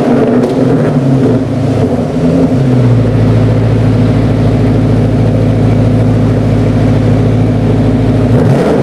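Exhaust of a 2006 Dodge Charger R/T's 5.7-litre Hemi V8 through a dual stainless sport muffler, revved in short blips, then held at a steady raised rpm for about five seconds before dropping back near the end.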